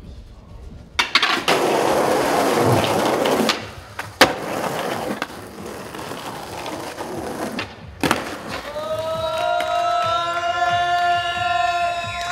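Skateboard wheels rolling loudly over rough concrete, a landing slap about four seconds in, then more rolling and a sharp tail pop about eight seconds in. This is followed by a steady high-pitched whine lasting about three seconds.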